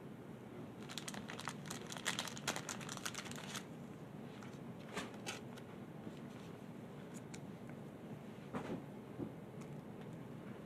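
Trading cards being handled with gloved hands, giving soft crinkling and light clicks: a quick flurry from about one to three and a half seconds in, then a few scattered clicks.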